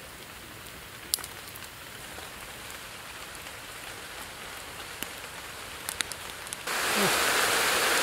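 Small wood campfire crackling: a steady hiss with scattered sharp pops. Near the end the sound jumps abruptly to a much louder steady rushing noise, with a brief low voice-like sound.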